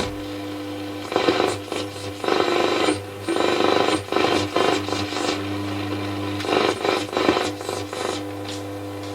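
Roberts R707 transistor radio's speaker on medium wave while being tuned: a steady low hum broken every second or so by brief snatches of stations and static. Stations come in weakly, poor medium-wave sensitivity that is put down to the IF amplifier module.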